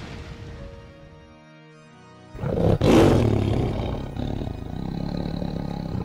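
A loud roar that bursts in suddenly about two seconds in and fades over a couple of seconds, laid over background music with held notes.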